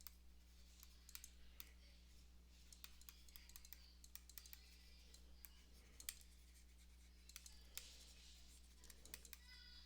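Near silence with faint, irregular computer keyboard clicks over a low, steady electrical hum.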